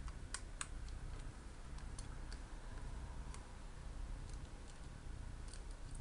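Scattered light clicks and taps of a small screwdriver and screws against the metal hard-drive caddy as the drive is unscrewed from it, over a low steady hum.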